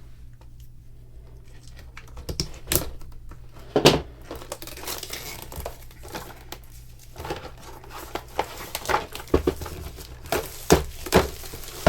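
Plastic shrink-wrap being torn and crinkled off a boxed miniatures kit: a few sharp taps and rips, then a run of crackling rustles.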